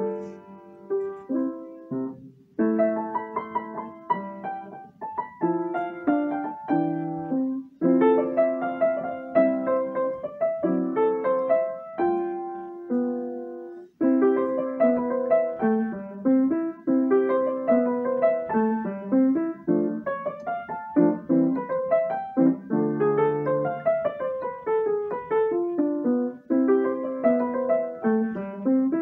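Upright piano played by a child, a continuous run of notes in a solo piece, with a brief break about two seconds in and another short break around halfway.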